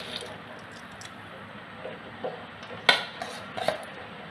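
Steel plate and spoon clinking a few times, sharp and brief, from about three seconds in, as soaked basmati rice is tipped into a pot of boiling water. A steady bubbling hiss from the boiling water runs underneath.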